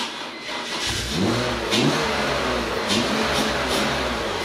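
BMW E46's M54 straight-six starting up about a second in, then running on the throttle with its revs rising and falling unevenly. It won't hold an idle on its own, the stalling fault behind codes P1504/P1508 that is most often caused by a bad idle control valve.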